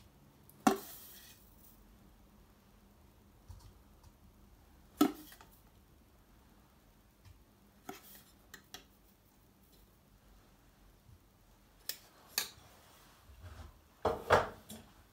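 About seven sharp clinks and taps of kitchenware, irregularly spaced over a quiet room, the loudest near the start, about five seconds in, and near the end.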